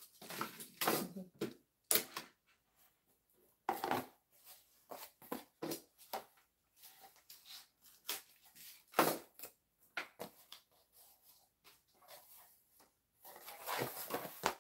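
Utility knife blade slicing through corrugated cardboard in a series of short, irregular scraping strokes. Near the end comes a longer stretch of cardboard scraping and rustling as the cut strip is lifted off the sheet.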